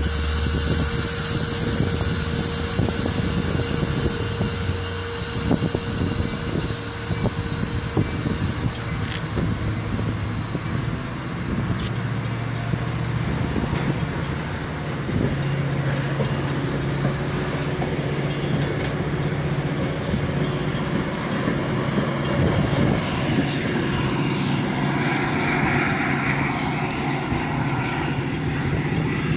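Metra commuter train of stainless-steel bilevel gallery cars rolling past at close range as it pulls out. The steel wheels rumble on the rails with many short clicks, over a low steady drone that steps up in pitch about halfway through.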